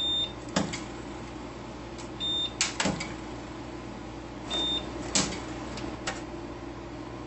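Capacitor-discharge spot welds joining aluminum sheets, fired through a handheld single-probe copper electrode: three sharp snaps about two and a half seconds apart, the middle one loudest, each preceded by a short high beep. A steady low hum runs underneath.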